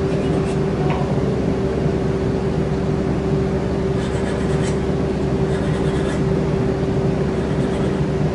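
Polishing machine running steadily with a knife part held against its leather-covered wheel: an even motor hum with a held tone, and a faint scratchy hiss a few times in the middle as the steel meets the wheel.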